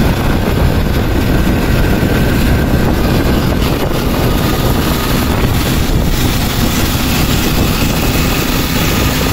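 Motorcycle tricycle's engine running steadily while underway, with wind and road noise, heard from inside the sidecar.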